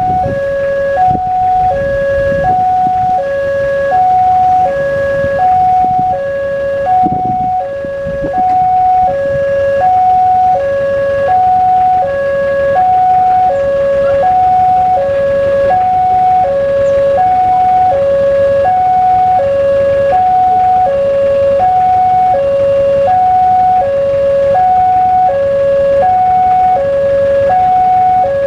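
Railway level-crossing warning alarm sounding from its pole-mounted loudspeaker, a loud electronic two-tone hi-lo signal that alternates evenly, about one high-low pair every second and a half, warning that a train is approaching and the crossing is closed.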